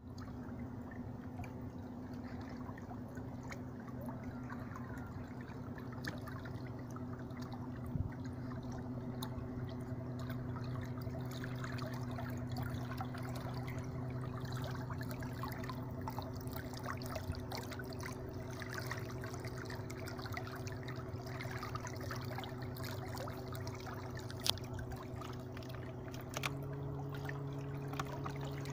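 Fisher 55 electric trolling motor running with a steady hum over water rippling and splashing past the boat. About 26 seconds in, the hum steps up to a higher pitch and gets a little louder, as the motor speeds up. A couple of small knocks.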